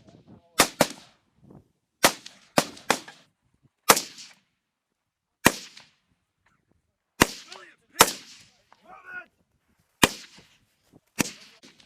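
Rifles fired as single shots at an uneven pace, about eleven in all, each sharp crack trailing off in a short echo: a fire team shooting while bounding forward in a squad attack.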